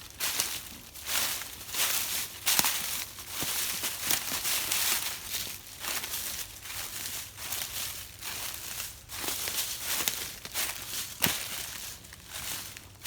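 Footsteps walking through dry leaf litter, about one step a second.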